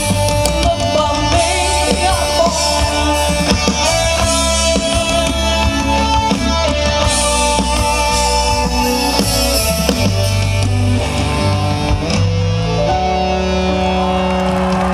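Live rock band music played loud through a stage sound system: guitar and drum kit over a steady bass, with long held notes.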